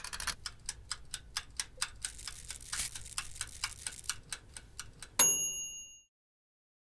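Toaster oven's wind-up timer ticking steadily, about five ticks a second. About five seconds in it ends with a single ding of the bell, signalling that the set time is up.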